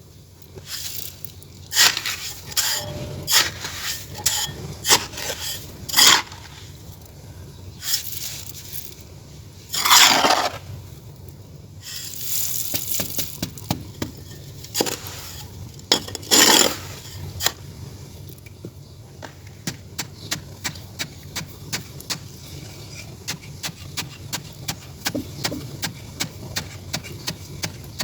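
Clay or earthenware being handled, with scattered scrapes and sharp knocks, then a quick, steady tapping from about two-thirds of the way in.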